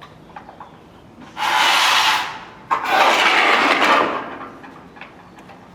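Two loud bursts of harsh, hissing, rasping noise, the first about a second long and the second about a second and a half, made by hand for an acoustic noise performance.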